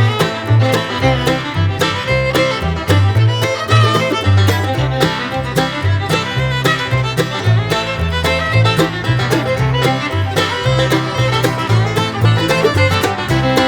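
Background music: an upbeat bluegrass-style instrumental with banjo, fiddle and guitar over a stepping bass line.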